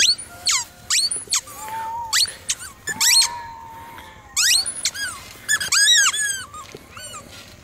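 Rubber squeaky toy squeaking over and over as a pit bull bites and chews on it: short, high squeals with a sliding pitch, some in quick runs.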